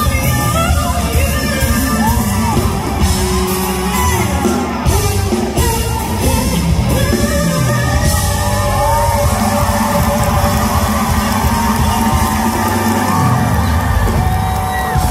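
Live pop performance: a female singer holds long, gliding sung notes over loud music accompaniment, with yells and whoops from the audience, all echoing in a large hall.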